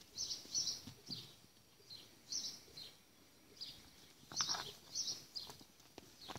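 Small birds chirping: short clusters of quick high notes repeating every second or so, with a denser run of chirps about four and a half seconds in.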